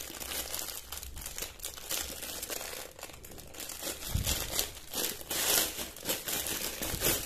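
Thin clear plastic packaging bag crinkling and rustling as it is pulled and torn open by hand, with irregular crackles throughout. The crackling is loudest about five and a half seconds in.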